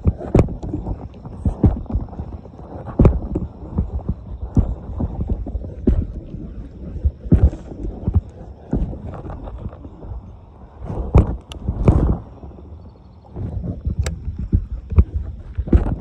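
Irregular dull thumps and knocks a half-second to a second apart: footsteps and handling of a handheld camera while walking along the bank.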